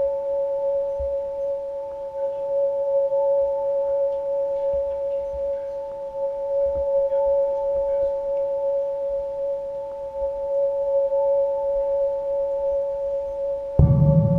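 A steady, unchanging hum made of two tones, one higher than the other, with faint knocks underneath. Near the end a louder low rumble comes in suddenly.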